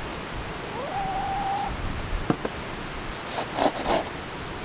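Plastic cat litter scoop sifting and scraping through wood shavings in a coop tray, with a couple of sharp clicks about two seconds in and a burst of rustling shavings near the end. A single tone rises and then holds for under a second about a second in, over a low steady rumble.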